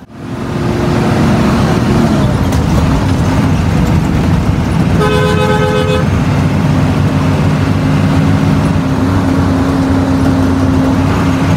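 Intercity bus's diesel engine running hard, heard from the driver's cab, its note dropping about two seconds in and then building again. A two-note horn blasts once for about a second about five seconds in.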